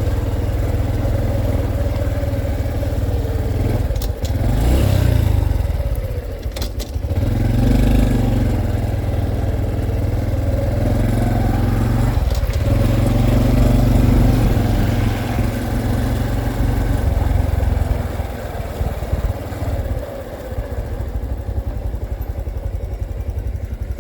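Honda CT125's single-cylinder engine running while riding, its note rising and falling several times with brief dips between.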